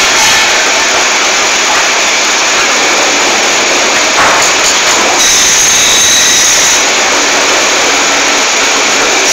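Sawmill machinery running loudly and steadily as a large ipe log travels on the mill carriage. A higher whine joins in for a second or two about halfway through.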